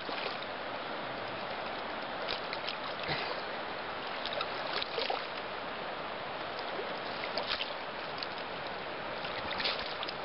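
Steady rush of flowing creek water, with a few short, light splashes as a steelhead thrashes in a landing net and the angler wades in the shallows.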